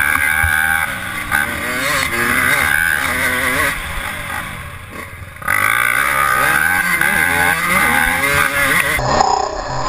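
Yamaha YZ125 single-cylinder two-stroke dirt-bike engine being ridden hard, its revs rising and falling with the throttle. The engine eases off about four seconds in, then comes back on the throttle louder about a second and a half later.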